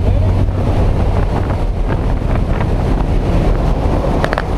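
Loud, steady rush of wind buffeting the microphone during a skydive, with a low hum that fades out about half a second in.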